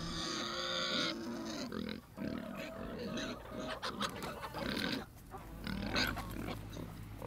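Pigs grunting among a flock of hens, with short calls throughout and a drawn-out call in the first second and a half.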